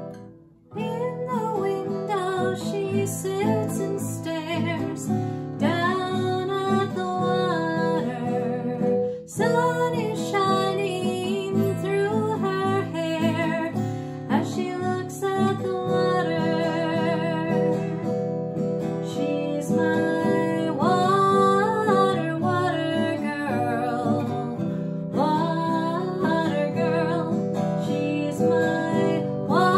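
A woman singing to her own strummed steel-string acoustic guitar, after a brief break right at the start.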